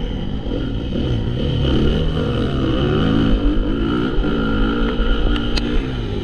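Honda CRF450 motocross bike's four-stroke single-cylinder engine revving up and easing off as the throttle is worked, its pitch rising and falling repeatedly, with two sharp clicks near the end.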